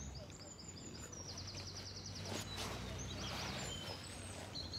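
Songbirds singing outdoors: high chirps and a fast, rapidly repeated trill early on, over a steady low hum of background noise, with a brief rush of noise about halfway through.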